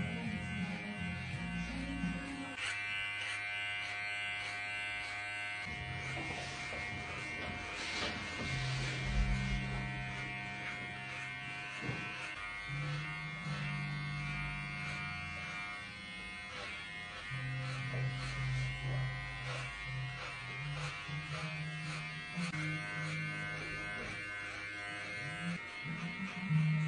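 Cordless electric hair clipper running with a steady buzz while it cuts short hair over a comb.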